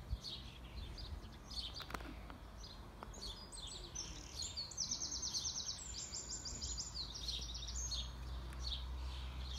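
Small songbirds chirping over a steady low rumble, with one bird singing a rapid high trill for about four seconds in the middle.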